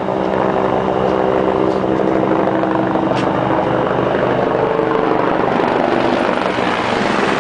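Helicopter flying low overhead: steady loud rotor and engine noise, with a hum of several low steady tones.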